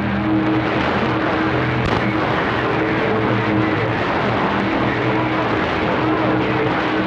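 Radio receiver static: a steady loud hiss from an open channel, with a steady low hum of several tones running under it and no voice coming through.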